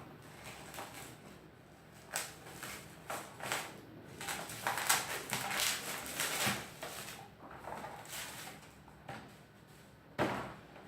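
Packaging of a camera clamp mount being handled and opened: an irregular run of rustles, scrapes and light knocks, busiest in the middle, with a sharper knock near the end.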